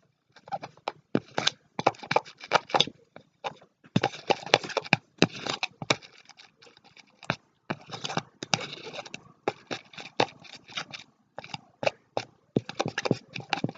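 Stirring a thickening mix of PVA glue and laundry gel into slime: a utensil scraping and clicking against the container in a fast, irregular run of short strokes.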